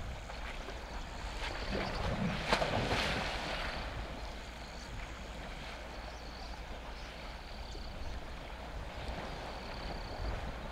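Elephants wading and splashing in a water hole: water sloshing and churning around them, with one louder splash about two and a half seconds in.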